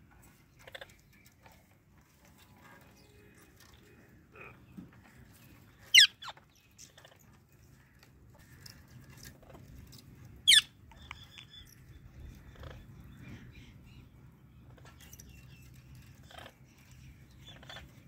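Two short, loud, high-pitched parrot screeches about four and a half seconds apart, each a quick downward sweep, over soft clicks and nibbling from parakeets eating at hand.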